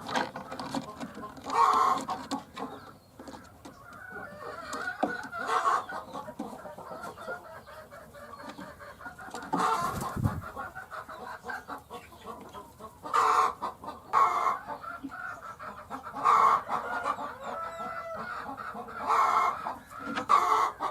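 Hens clucking, with a louder call every few seconds.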